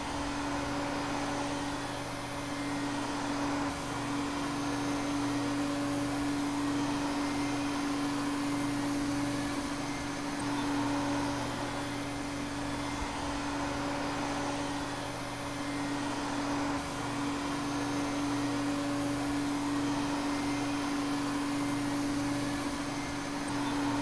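Vacuum cleaner motor running steadily: a constant hum with a strong low tone over an even rushing of air, unbroken throughout.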